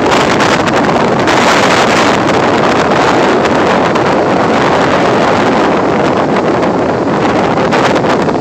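Strong wind blowing across the camera microphone: a loud, steady rushing.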